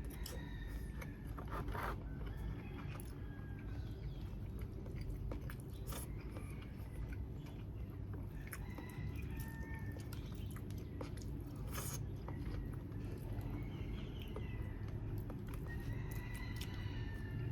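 A person chewing and eating grilled chicken, with scattered sharp mouth clicks and crunches over a steady low rumble. Short high chirps come and go throughout.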